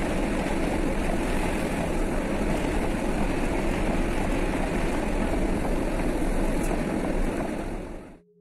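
Heavy rain and strong wind against a moving truck, mixed with tyre noise on the flooded road: a dense, steady rushing noise that fades out near the end.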